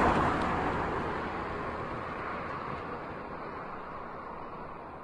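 WLtoys 124017 1/12 brushless RC car speeding away on a paved road, its motor and tyre noise fading steadily as it recedes.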